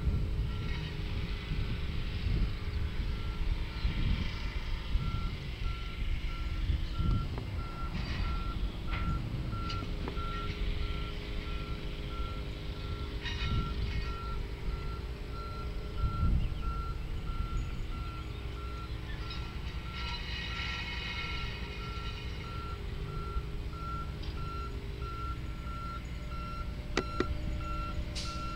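Reversing alarm of a Sperry Rail Service high-rail truck, one evenly repeated beep as the truck backs up along the track. A low rumble runs underneath it.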